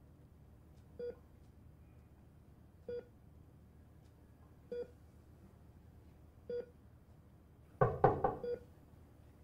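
Hospital bedside patient monitor beeping faintly and regularly, a single short tone about every two seconds, four times. Near the end there is one louder, brief noisy sound.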